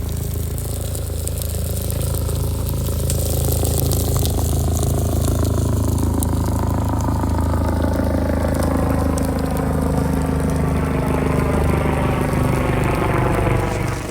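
A motor engine running steadily, with a pitched whine that falls slowly over the last several seconds before the sound cuts off abruptly at the end.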